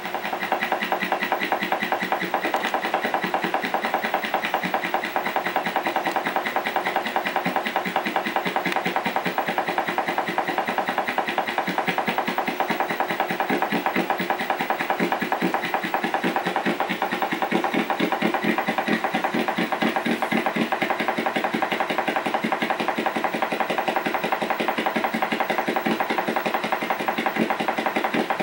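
Steady buzzing drone from the speaker of an old Zenith colour TV, with a fast, even pulse and unchanging pitch.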